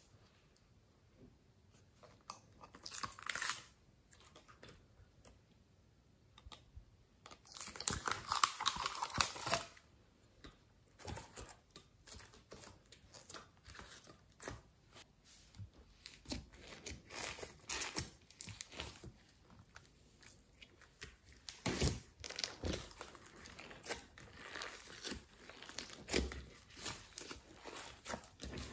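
Slime being peeled and squished by hand in a glass dish. There are rustling tearing sounds, the longest and loudest about a third of the way in, then a steady run of small crackles, clicks and pops as the slime is pressed and folded.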